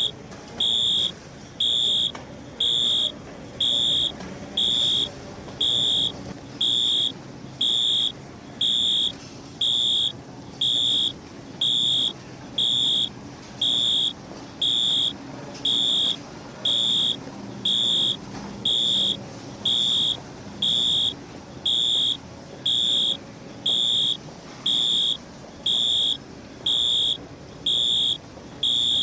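Bus station fire alarm sounding a loud, high electronic beep about once a second, each beep about half a second long, in an even, unchanging rhythm. A low background murmur fills the gaps between beeps.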